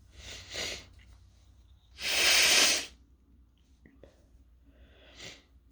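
A stifled sneeze: one loud rush of air through the nose and mouth about two seconds in, between breaths, with a sharp intake of breath before it and a shorter breath near the end. The sneezing is set off by fumes from toasting chili peppers.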